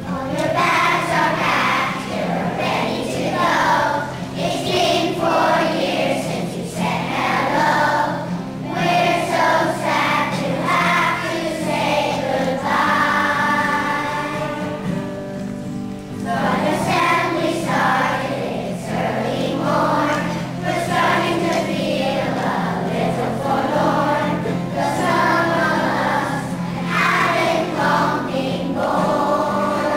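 A children's choir singing a song together, with a long held note about halfway through.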